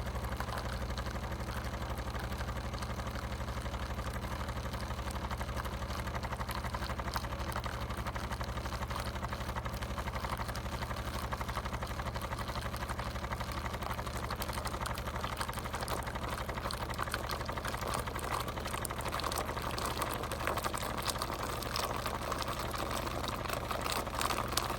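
Steady mechanical hum of a De'Longhi La Specialista espresso machine running, which cuts off abruptly right at the end.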